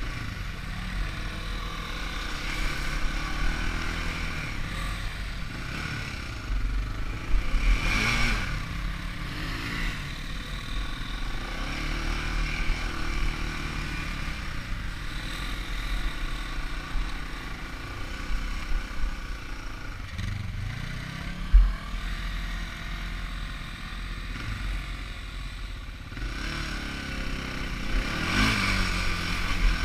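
ATV engine running on a trail ride, its pitch rising and falling with the throttle, with louder revs about a quarter of the way in and again near the end. A single sharp knock comes about two-thirds of the way through.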